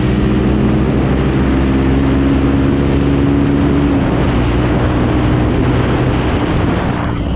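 Motorcycle engine running steadily at cruising speed on the road, heard from the rider's seat, with heavy wind rushing over the microphone. The engine note holds even, easing slightly near the end.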